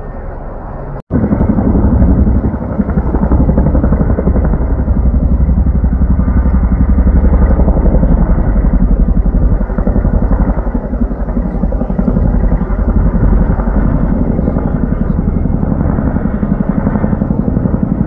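Tandem-rotor CH-47 Chinook helicopter flying close overhead with a slung water bucket: a loud, steady rapid rotor chop with a deep low rumble. The sound breaks off for an instant about a second in and comes back louder.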